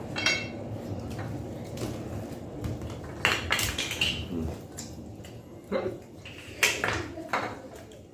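Cutlery clinking against plates during eating: half a dozen sharp clinks, a few of them ringing briefly.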